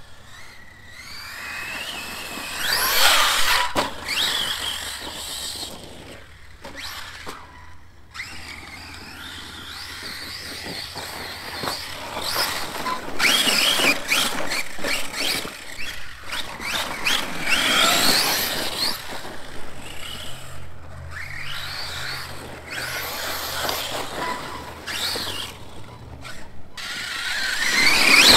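Arrma Kraton 4S RC monster truck's brushless motor and drivetrain whining in repeated bursts of throttle. The pitch rises and falls with each burst, and it cuts off suddenly between runs.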